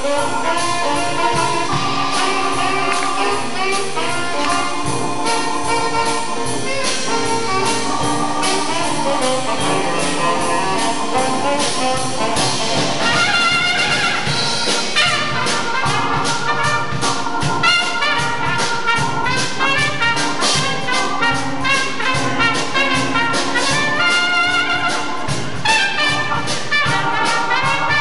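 Live jazz band playing, with saxophones and brass horns over drums. The horns get brighter and fuller about halfway through.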